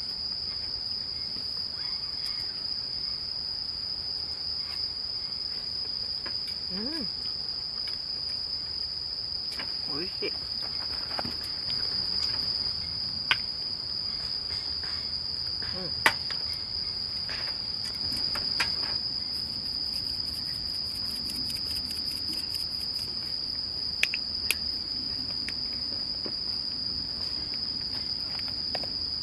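Insects chirring in one steady high-pitched drone, with a few short sharp clicks over it, the loudest about halfway through.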